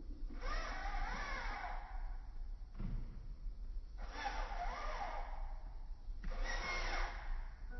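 Electric motor and gears of a 1:18-scale RC monster truck whining in three throttle bursts, the pitch rising and then falling in each as the truck speeds up and slows.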